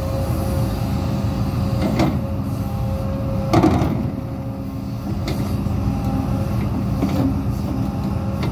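Hidromek 230LC H4 crawler excavator running as it swings its boom and bucket down into a trench, with a steady whine that stops about three and a half seconds in. A light knock comes about two seconds in, and a louder clunk follows just after, as the bucket goes down.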